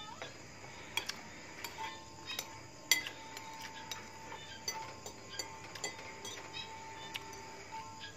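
Metal fork and spoon clinking and scraping against ceramic plates during a meal: scattered light clinks, with one louder clink about three seconds in.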